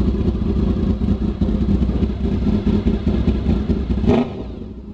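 Honda VFR800 Interceptor's V4 engine idling loud with open headers and no muffler, a dense pulsing exhaust note; it is running rich. Near the end a sharp knock, and the sound drops much quieter.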